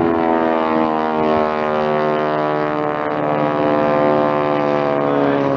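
Airplane flying past, its engine a steady drone whose pitch falls slightly in the first seconds as it goes by.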